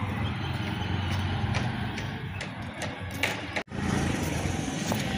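Street traffic noise: a steady low engine hum with a few light clicks, cutting out for an instant about three and a half seconds in.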